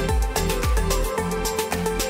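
Background music with a steady beat: deep bass kicks that drop in pitch under held synth-like tones.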